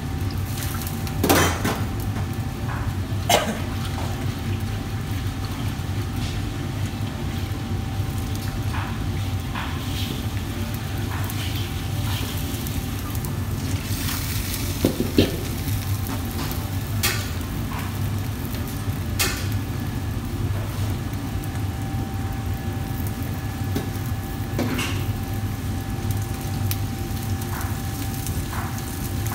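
Steel ladle knocking against a wok half a dozen times, the loudest knocks about a second in and near the middle, over the steady low rumble of a commercial wok range with a faint steady whine.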